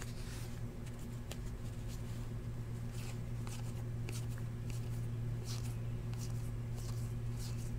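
Glossy Panini Elite football trading cards being slid one by one off a stack in the hand, making faint irregular swishes, over a steady low hum.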